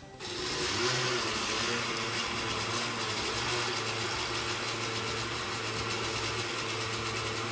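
Oster blender switched on about a quarter second in and running steadily, spinning a bladeless butterfly (whisk) attachment through aloe vera gel instead of the cutting blade.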